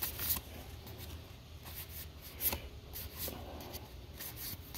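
Magic: The Gathering cards being slid one at a time from the front of a handheld stack to the back: a handful of soft, brief card flicks and rustles at irregular intervals.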